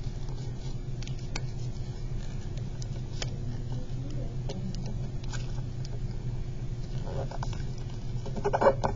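Origami paper rustling and crinkling as fingers fold it and press the creases flat, with scattered light ticks and a louder burst of crinkling near the end, over a steady low hum.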